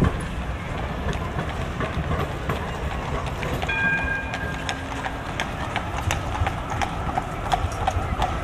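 Horse's hooves clip-clopping on the road as a carriage horse walks past, the clops clearest and most regular in the second half at about three a second. Steady street traffic rumble underneath, with a brief ringing tone about four seconds in.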